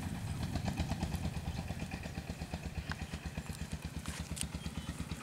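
Small engine running steadily out of sight, a low even pulse of about ten beats a second.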